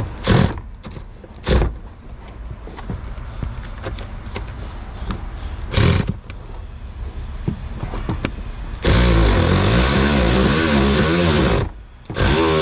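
A few sharp knocks as a socket on a long extension is worked down onto a bolt, then from about nine seconds in a cordless electric ratchet runs with a wavering whine, stops for a moment and starts again, turning the bolt.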